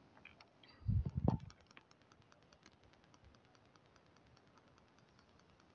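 A pot of sugar and water heating on a gas flame for syrup. About a second in there are a few low knocks of the silicone spatula against the pot. After that comes a faint, fast, even ticking from the heating pan as the water works toward a boil.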